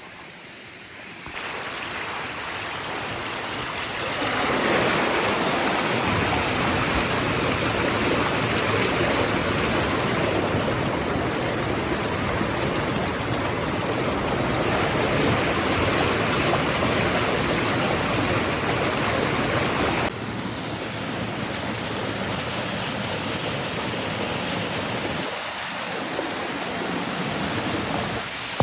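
Creek water rushing steadily, a dense even roar that gets louder about one and four seconds in and drops back a little about twenty seconds in.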